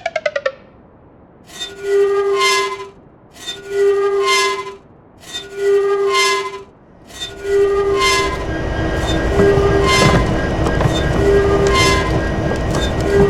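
A train horn sounds in repeated blasts about every two seconds. From about seven seconds in, a train rumbles past underneath the blasts.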